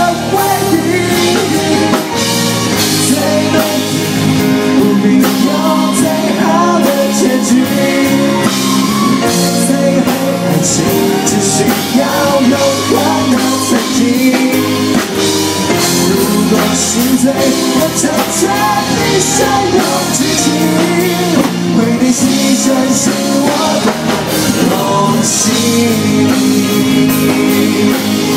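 Live rock band playing a pop-rock song: a male lead singer over electric guitar, keyboard and a drum kit, loud and steady, heard from the crowd in front of the stage.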